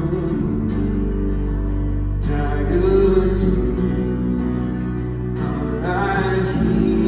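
A live band plays a slow, sustained passage of music between sung lines, over steady low chords. Short melodic phrases come in about three seconds in and again near six seconds.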